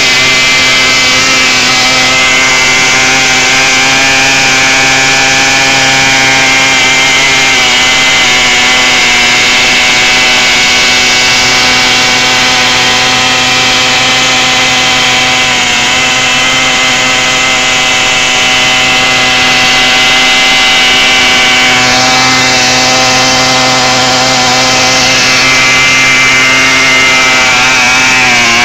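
Pocket bike's small air-cooled engine held at high revs while its flat rear tyre spins against the asphalt in a burnout, grinding the rubber off the rim. The engine note stays steady, with a hissing scrub over it, and dips briefly at the very end.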